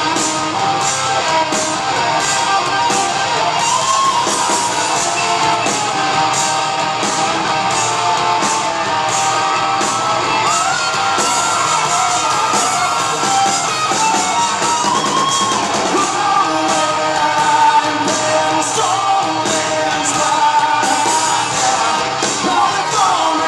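Live rock band playing loud: electric guitars and a drum kit with steady cymbal hits, with a voice singing over it, heard from the audience in a large hall.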